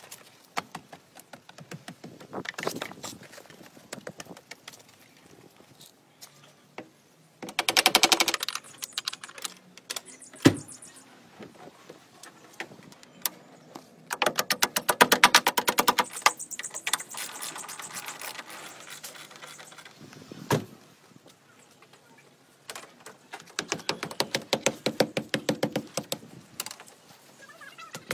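Three bursts of rapid mechanical clicking, each one to three seconds long, and two single sharp knocks, from work on a car door and its hinge.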